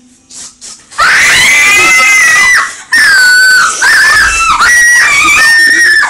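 A few faint clicks, then two girls screaming: a run of long, high-pitched shrieks with short breaks between them, as they are woken by a spray of water.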